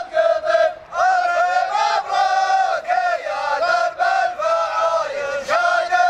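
A group of men chanting loudly in unison in long, held, high-pitched phrases, as a celebratory group chant.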